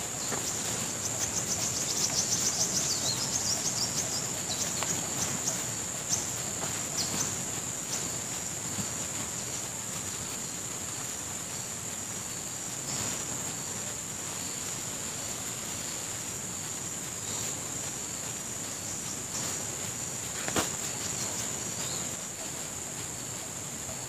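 Forest insects droning steadily at a high pitch, over a steady background hiss. A run of rapid ticks comes in the first few seconds, and a few sharp knocks come later.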